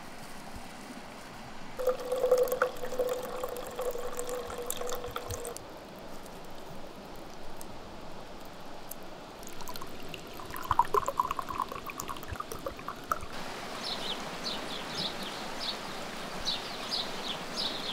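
Liquid poured into glassware twice, a few seconds apart, each pour a steady pitched ringing, the second higher than the first. From about three-quarters through, a bird chirps over and over.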